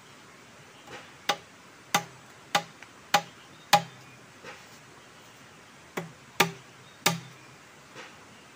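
Machete chopping into a bamboo pole: five sharp strikes about two-thirds of a second apart, a pause of about two seconds, then three more.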